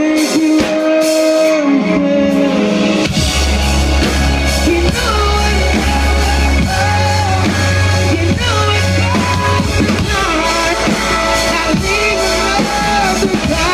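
Live band performance with a lead vocal singing sustained, gliding notes over guitar. About three seconds in, heavy bass and drums come in under the voice.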